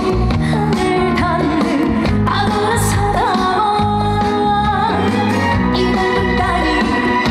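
Loud trot-style pop song with a singing voice holding wavering notes over a steady band accompaniment with bass and beat.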